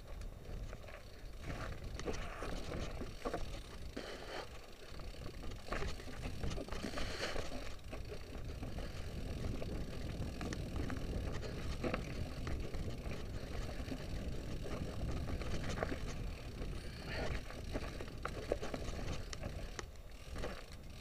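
Mountain bike rattling down a rocky, rooty trail: tyres bumping over stones with many short clicks and knocks from the bike, over a steady low rumble.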